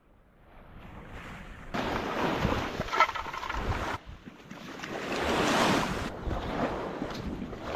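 Sea waves washing onto the shore, the rush swelling and fading, with wind buffeting the microphone. The sound changes abruptly twice, and a sharp click comes about three seconds in.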